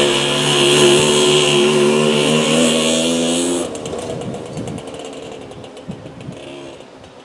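Jawa Pionýr 21's small two-stroke single-cylinder engine running as the moped rides away along the driveway. It drops off sharply about three and a half seconds in, leaving only a faint distant sound.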